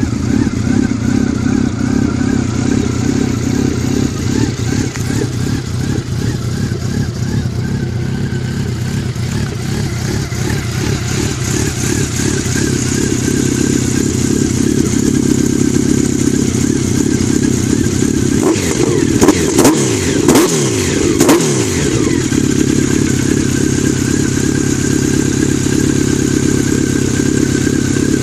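2007 Honda CB1300 Super Bol d'Or's inline-four idling through a Moriwaki full exhaust with a K-Factory silencer, getting somewhat louder about twelve seconds in. About two-thirds of the way through, a few quick throttle blips rev it up and back down before it settles to idle again.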